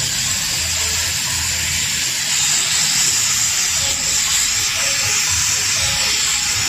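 LPG gas torch flame hissing steadily while it heats an aluminium motorcycle cylinder head for welding, with a low uneven rumble under the hiss. Faint music plays underneath.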